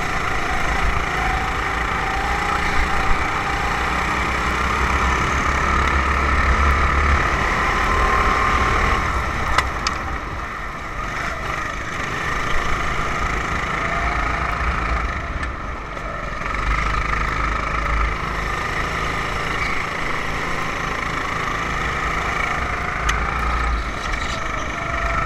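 A 270cc kart engine heard on board at racing speed, its note climbing on the straights and easing off twice as the kart slows for corners.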